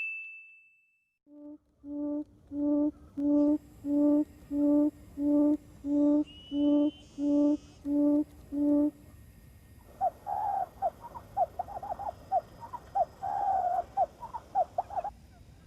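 Quail calling: a series of about twelve low, evenly spaced hooting notes, roughly one and a half a second, followed by a quick run of higher, irregular chattering notes.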